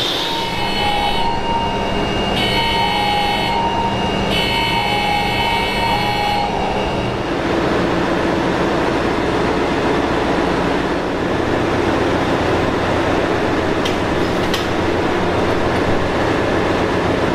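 Steady loud din of ship's engine-room machinery, with a pulsing alarm tone sounding on and off for about the first seven seconds, after which a steadier lower hum remains. Two sharp clicks come near the end.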